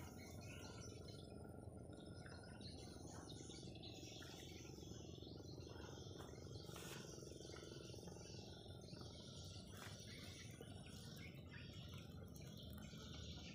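Faint outdoor ambience: small birds chirping now and then, with insects in the background.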